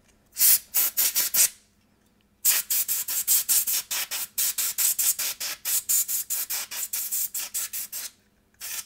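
Can of compressed air blown through its red straw into a car radio's CD mechanism in rapid short hissing blasts, about five a second: a short run, then after a pause a longer run of several seconds. The air is clearing dust and debris from the laser lens and tracking mechanism.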